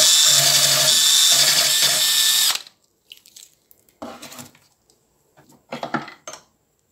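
A drill spinning a wire wheel against the rusty steel jaws of side cutters, a loud steady whir with a hiss, stopping abruptly about two and a half seconds in. After it, a few short scrapes and knocks as the cutters are handled in the vise.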